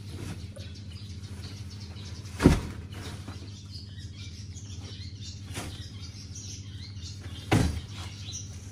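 Bundles of garlic scapes dropped and set down into a plastic crate: two loud thumps about five seconds apart, with a lighter knock between them, over a steady low hum.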